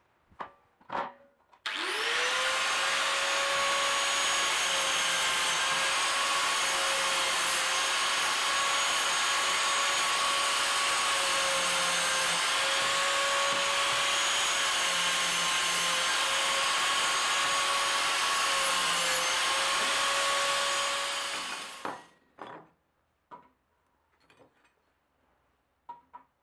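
Electric abrasive cut-off disc tool cutting galvanized steel C-profile: the motor spins up sharply and runs with a steady high whine and grinding hiss for about twenty seconds, sagging slightly under load a few times, then winds down. A few light clicks of handling the metal come before and after.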